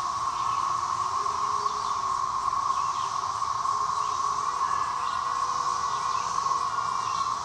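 Small FPV racing quadcopter's brushless motors and propellers buzzing steadily in flight, with slight shifts in pitch.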